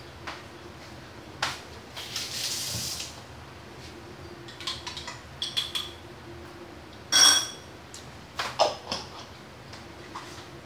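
Dishes and cutlery being handled on a kitchen counter: scattered knocks and clinks, a brief hiss about two seconds in, and one loud ringing clink of a dish about seven seconds in, over a faint steady hum.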